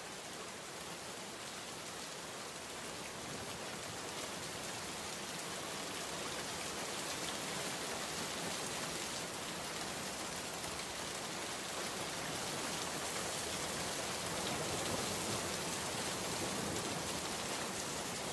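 A steady, even hiss with no distinct strokes, strongest in the high range, getting slightly louder over the stretch.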